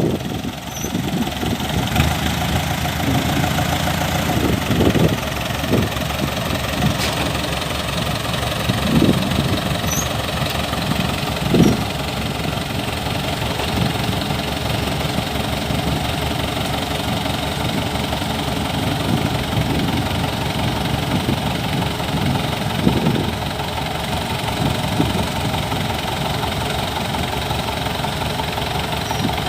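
Kubota DC-105X combine harvester's diesel engine running steadily, with a few brief louder thuds at intervals.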